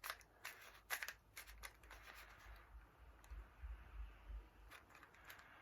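Faint, irregular clicks and rattles of a plastic puzzle cube being twisted by hand in a failed attempt to solve it.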